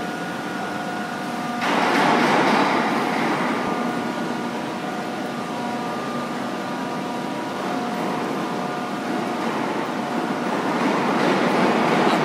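Heavy-duty CK6031B face lathe running: a steady mechanical hum with several steady whining tones. A louder rushing noise swells about two seconds in and fades, then builds again near the end.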